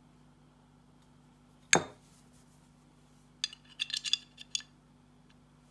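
Steel parts of a Husqvarna M/40 (Lahti L-35) 9 mm pistol being handled and fitted together: one sharp metallic click about two seconds in, then a quick run of small clinks that ring briefly.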